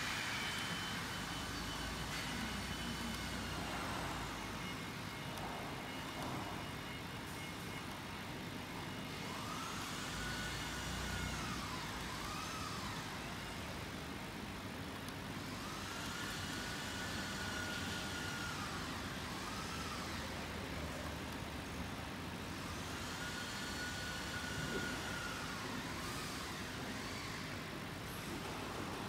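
Machine motor whine: a tone that rises, holds, then falls over a few seconds, followed by a couple of short blips. It starts about nine seconds in and repeats about every six to seven seconds over a steady workshop hum.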